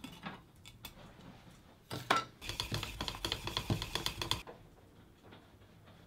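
Paint being stirred in a metal paint tin: a few light clicks and a sharp knock, then about two seconds of rapid clattering as the stirring stick knocks against the sides of the tin.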